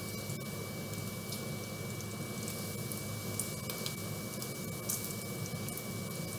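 Bacon frying in a nonstick skillet, with shrimp sautéing in a second pan: a steady sizzle with small crackling pops of spattering fat. A steady fan hum and a thin high whine run underneath.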